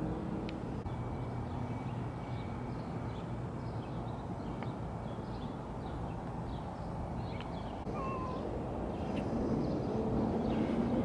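Steady low outdoor rumble of distant traffic and wind, with scattered faint high chirps and a short faint call about eight seconds in; the rumble grows louder near the end.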